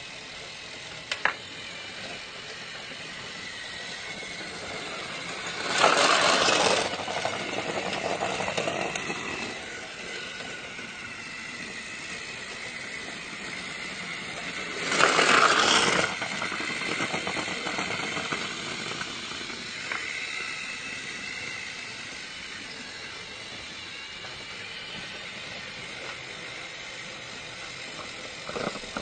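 Battery-powered toy train's motor running steadily, with two brief louder rushes about six and fifteen seconds in.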